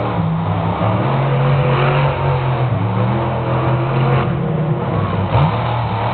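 Illuminator monster truck's engine running loud under throttle. It holds a steady pitch for several seconds, then revs up in a quick rise near the end.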